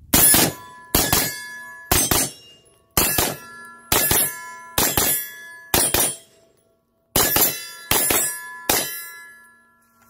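Rapid shots from a 7.5-inch AR pistol, heard as sharp reports in close pairs about once a second, with a break of about a second near two-thirds through. Steel targets ring on between the shots.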